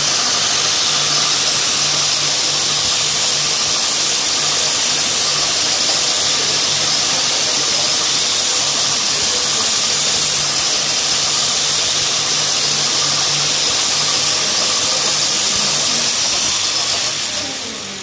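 Multi-spindle yarn twisting machine running, its spindles and reel spinning with a steady high whir and a low hum, dying away near the end as the machine runs down.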